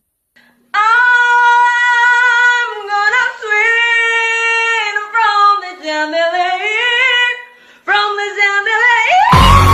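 A woman singing unaccompanied, holding long high notes that bend and slide in pitch, with short breaks between phrases. Near the end a loud steady rushing noise cuts in.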